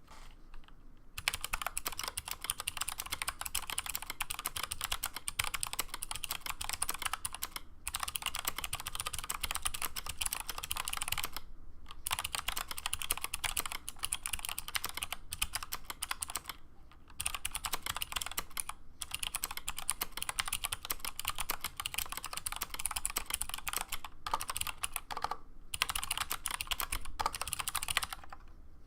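Fast continuous typing on a 60% mechanical keyboard with clicky switches (Aristotle clicky stems in milky Gateron housings, 67 g springs) under thick PBT keycaps on an aluminium plate: dense sharp clicks, broken by a few short pauses.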